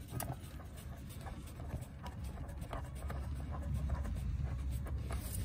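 Faint scattered metallic clicks and taps as a 12 mm hinge bolt is started by hand into the lower door hinge of a Toyota Camry rear door, over a low rumble that swells about halfway through.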